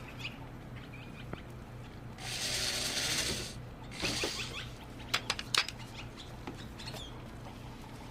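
A cordless drill's chuck being worked as the drill bit is swapped for a bigger one. There are two short noisy bursts, the first about two seconds in and lasting over a second, then a quick run of sharp clicks about five seconds in.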